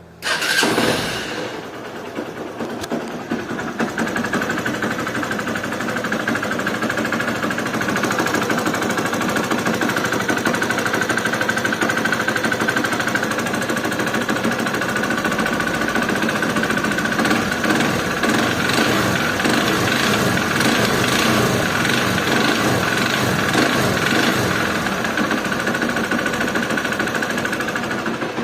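Honda Bros 150 single-cylinder motorcycle engine starting with a sudden burst, then running at idle with a rapid, dense mechanical clatter over a steady whine. This is the strange noise on starting that the owner is asking about.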